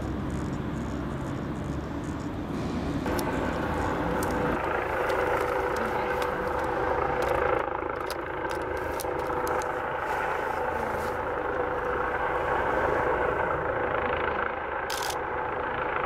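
Police helicopter hovering close over a chimney top, its turbine and rotor making a steady drone.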